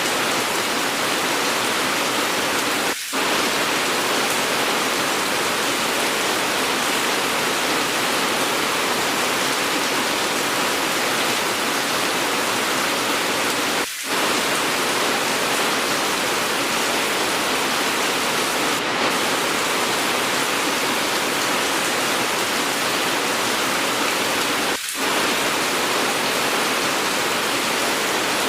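Steady heavy rain, an even hiss, dipping briefly three times about eleven seconds apart.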